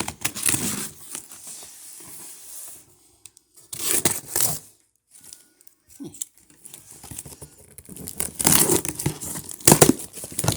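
A cardboard shipping box being torn open in three ripping bursts, the last the longest and loudest, with crinkling of packing material in between.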